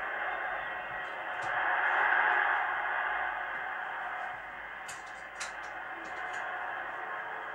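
Stadium crowd noise at a football match, a steady wash of many voices that swells about two seconds in and eases again. It has the narrow, hissy sound of an old television broadcast recording.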